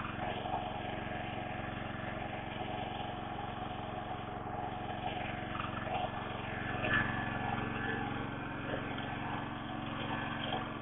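A steady low engine hum that runs evenly, without revving.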